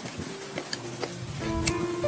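Background music with plucked-string notes over held tones, and a few sharp clicks.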